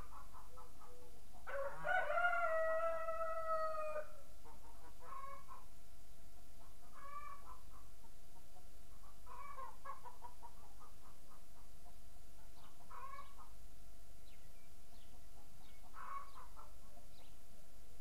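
A rooster crows once, loudly, about two seconds in: a long call that falls slightly in pitch. Shorter, fainter calls from more distant fowl follow every two to three seconds, and small birds chirp faintly and high-pitched further in.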